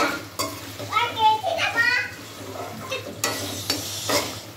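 Steel ladle stirring and scraping mutton in a stainless steel kadai, with a few sharp scrapes against the pan, while the meat sizzles as it fries dry once its cooking liquid has boiled off. A brief voice is heard in the background between one and two seconds in.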